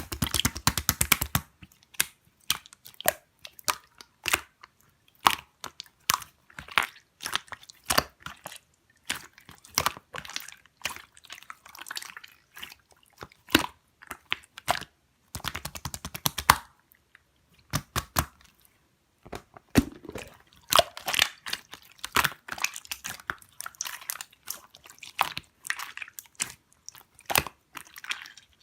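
Slime being squeezed and pressed by hand, giving irregular crackling and popping clicks. Tight runs of rapid clicks come right at the start and again about halfway through.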